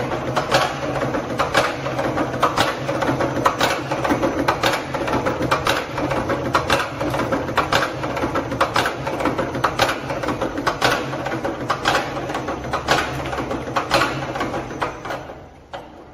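Hollow-bead making machine running as it forms beads from a metal tube: a steady motor hum with a sharp click about twice a second. It winds down and stops near the end.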